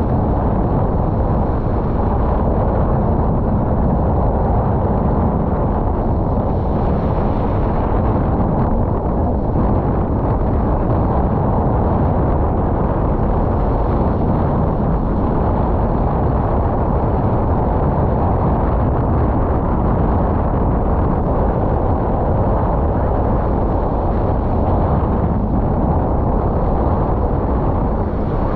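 Wind of about 25 knots buffeting the camera microphone, mixed with the rush of water past a sailboat's hull. It is heard as a loud, steady low rumble with no breaks.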